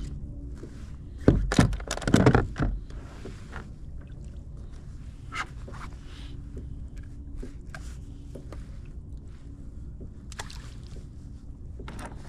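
Gear being handled aboard a plastic fishing kayak: a burst of loud clattering knocks about one and a half to three seconds in, then a few light taps and clicks.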